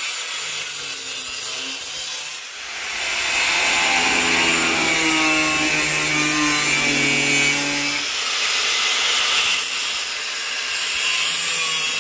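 Angle grinder cutting into the sheet steel of a truck cab, running continuously with its motor note shifting under load. It eases briefly about two and a half seconds in and again around eight seconds.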